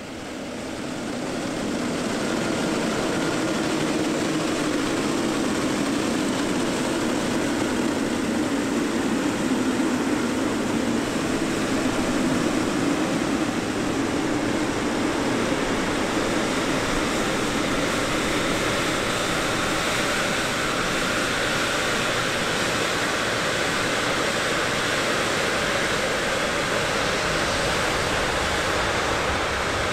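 Boeing 777 freighter's jet engines running at low taxi power: a steady rushing noise with a faint whine above it, fading in over the first couple of seconds and then holding level.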